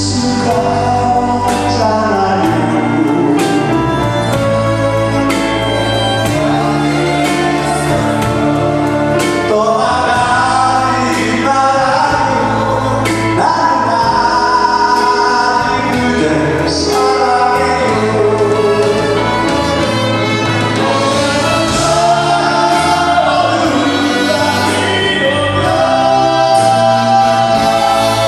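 Two male singers trading lines of a duet over a live band with a drum kit, amplified through the hall's PA. The sung melody and the band carry on steadily, with regular drum and cymbal strikes.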